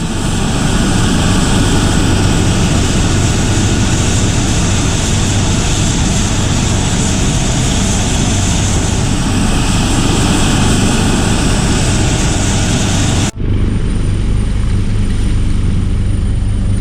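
Aircraft engine running loud and steady. The noise cuts off abruptly about thirteen seconds in and resumes at once, a little duller.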